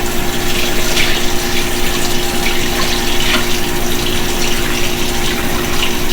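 Kitchen faucet running steadily into the sink while raw chicken is rinsed under it, with a steady low hum underneath.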